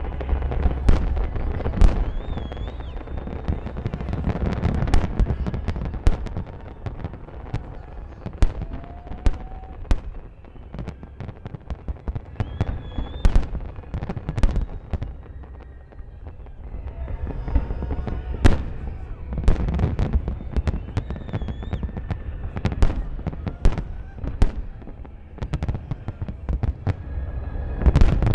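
Large aerial fireworks display: a rapid, irregular string of shell bursts, sharp bangs and crackles over a continuous low rumble of booms.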